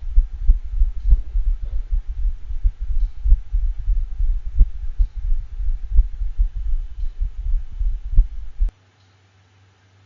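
Recorded heart sounds of a dog in atrial fibrillation: fast beats at markedly irregular intervals, with a faint gallop, over a low rumble. The recording cuts off suddenly about a second before the end.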